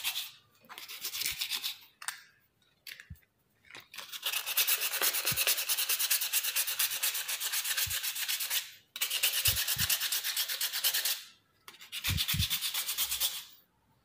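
Sandpaper rubbed by hand over the stained finish of a wooden stair post and rail, in quick back-and-forth strokes. It comes in four runs: a short one about a second in, a long one of about five seconds starting about four seconds in, another right after it, and a last one near the end.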